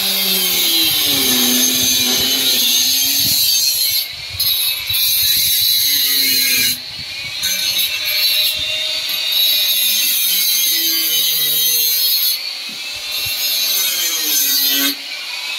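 Power tool running in long stretches of harsh, high-pitched noise, broken by short pauses about four, seven, twelve and fifteen seconds in.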